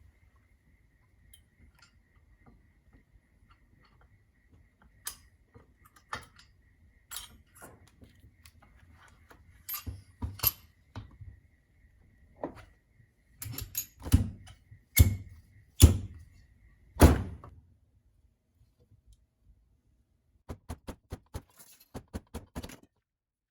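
Fork oil seal being tapped down into the outer tube of a KYB 41 mm inverted motorcycle fork: scattered light knocks at first, then four heavier strikes about a second apart, followed near the end by a quick run of light clicks.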